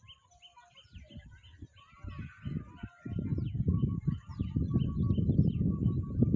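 Birds chirping in short, repeated calls, joined about three seconds in by a louder, irregular low rumble that becomes the loudest sound.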